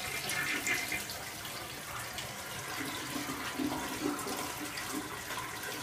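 Toilet flushing: water rushing and swirling down the bowl.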